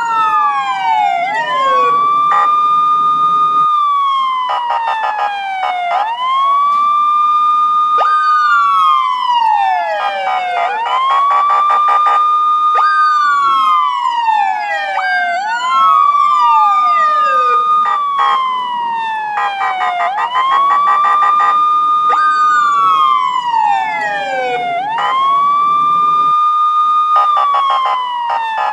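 Police siren wailing. Each cycle rises quickly, holds at the top and slides slowly down, repeating about every four to five seconds, with two wails overlapping out of step.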